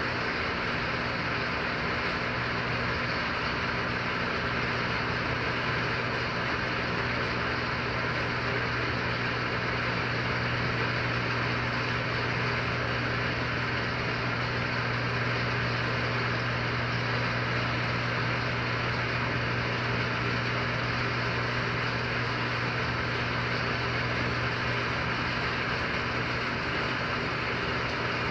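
A steady, unchanging mechanical hum over an even hiss, with no breaks or changes.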